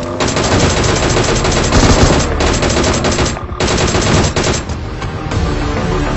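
Rapid automatic gunfire: a long burst of shots for about three and a half seconds, a brief break, then a second, shorter burst. It trails off into music near the end.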